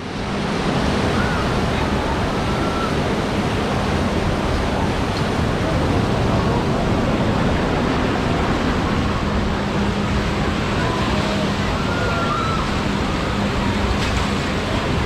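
Steady rushing of the churning water in a river rafting ride's channel, with a low hum underneath.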